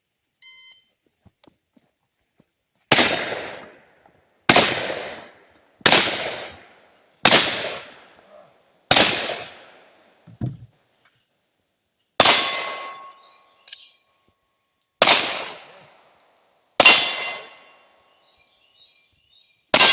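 A shot timer's start beep, then nine gunshots: five about a second and a half apart, a pause, then four more spaced further apart. Steel targets ring after several of the later shots.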